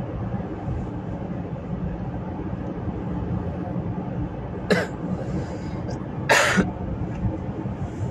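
A person coughs twice: a short cough about four and a half seconds in, then a slightly longer one about a second and a half later, over a steady low background rumble.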